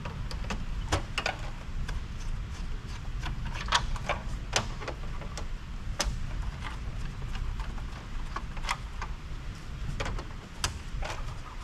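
Irregular clicks and light metallic taps of hand tools working the metal standoffs that hold a circuit board inside a stereo power amplifier chassis, over a steady low rumble.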